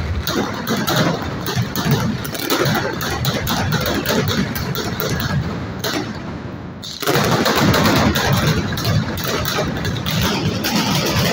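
Mascletà firecrackers going off in a dense, continuous barrage of rapid bangs over a heavy rumble. The barrage eases briefly about six seconds in, then comes back abruptly and at full strength about a second later.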